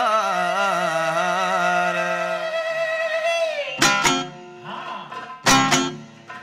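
A male voice holds a long, wavering sung note in a Yemeni wedding zaffa chant, dying away about three and a half seconds in. A plucked string instrument then plays a few sharp strokes in pairs, with short pauses between them.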